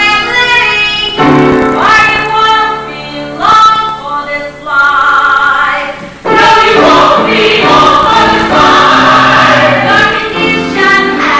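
Several voices singing a musical number together in chorus, with accompaniment. The sound becomes fuller and louder about six seconds in.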